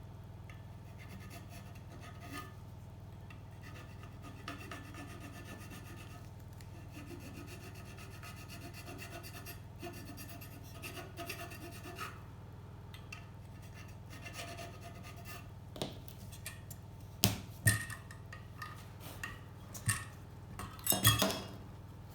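Hand file rasping on a bicycle hub part in slow, steady strokes, shaping it to fit. In the last few seconds the filing gives way to several sharp metallic clicks and knocks of the part being handled, the loudest about a second before the end.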